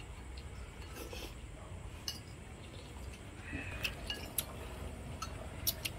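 Light clinks of chopsticks and spoons on ceramic bowls, a few scattered strokes, over soup simmering in a pot on a portable gas stove and a steady low rumble.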